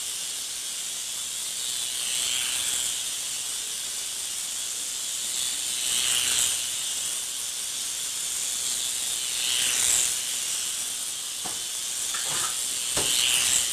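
Small toy radio-controlled helicopter's rotors whirring with a steady high hiss, swelling and fading about every four seconds as it circles close past.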